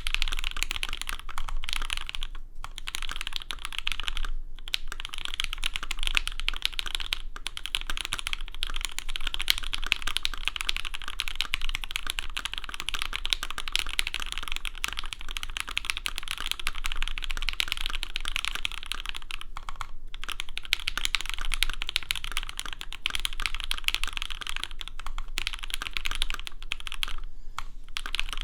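Fast, continuous typing on a Saka68 prototype mechanical keyboard: lubed and filmed Alpaca v1 linear switches on a carbon fiber plate under GMK Olivia++ keycaps, giving a dense stream of keystroke clacks with a few short pauses.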